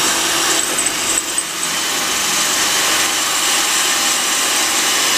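Electric drill running steadily under load, its bit grinding through the spot welds that join the sheet-steel quarter panel to the rocker.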